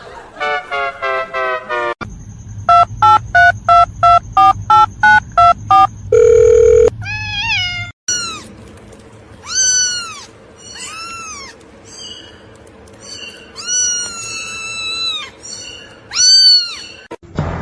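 A quick run of evenly spaced electronic beeps, like a phone ringing, followed by a cat meowing six or so times in high, arching cries. A faint steady hum runs under the meows.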